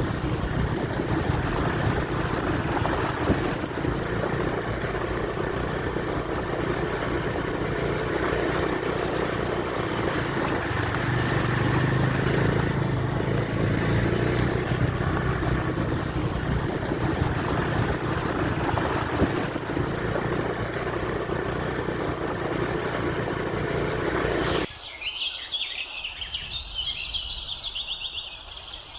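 Motorcycle riding along a rough dirt track, its engine under a steady rush of road and wind noise. Near the end this cuts off suddenly to birds chirping.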